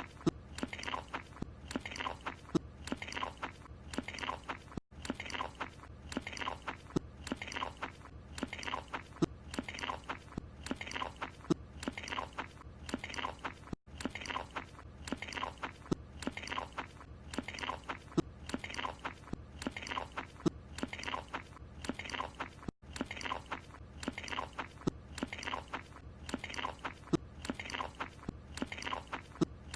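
Cartoon character chewing a croissant, about one and a half chomps a second. The short chewing clip is looped and restarts after a brief gap about every nine seconds.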